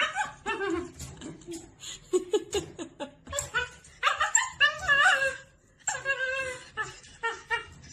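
Husky puppy whining and howling in a string of wavering cries, loudest about four to five seconds in, with people laughing.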